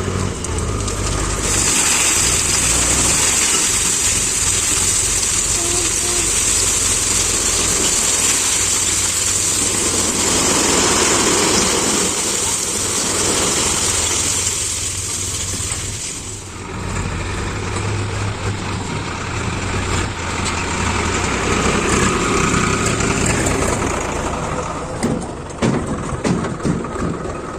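Diesel engine of a JCB 3DX backhoe loader running as it works, with a strong hissing noise over it that stops sharply about sixteen seconds in; the engine carries on steadily after that.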